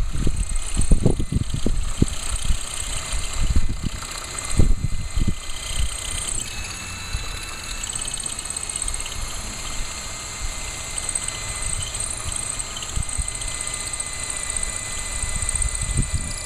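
Cordless drill running steadily with a high motor whine as an ordinary non-hammer drill bores an anchor hole into masonry, making slow progress without hammer action. Wind buffets the microphone in the first few seconds.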